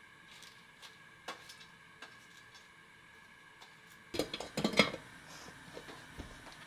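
Stainless steel pressure cooker lid being set on the pot and closed, a short run of metal clanks and clicks starting about four seconds in, loudest around five seconds.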